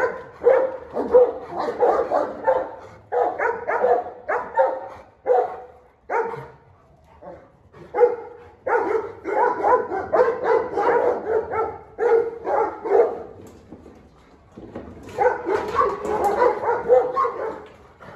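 Large dogs barking in fast runs of deep, repeated barks, easing off briefly about six and fourteen seconds in.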